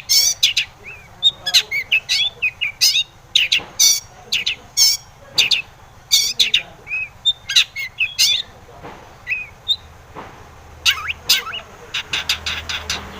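Long-tailed shrike (cendet) singing: a fast run of short, sharp chattering notes, several a second, broken by a few brief pauses.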